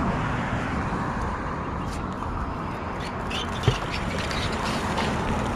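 Steady road traffic noise with a single sharp knock about three and a half seconds in.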